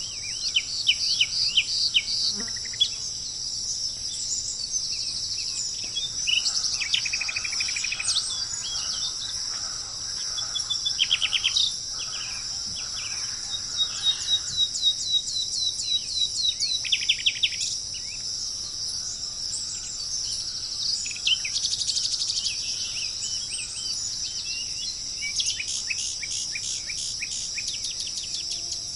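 Wild birds calling in bouts of rapid, repeated short notes and trills over a continuous high-pitched drone of insects.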